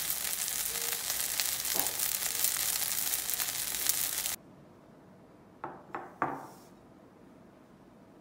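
Shrimp and green-onion pancake sizzling and crackling in oil in a frying pan as it crisps, cutting off suddenly about four seconds in. Then quiet room tone with three short knocks close together.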